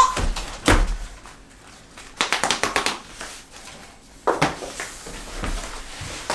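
Infant floor-mat pieces being carried and set down on a pile: a knock about a second in, a quick run of light clattering taps around two to three seconds in, then another knock.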